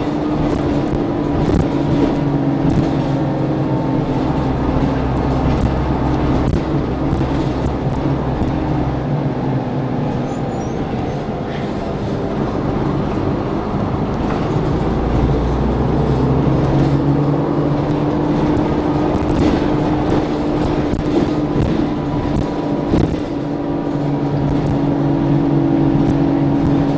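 Orion V city bus heard from inside the passenger cabin while driving: the engine and drivetrain run steadily with a droning hum and road rumble. A little past halfway the engine note dips, then climbs again as the bus pulls away.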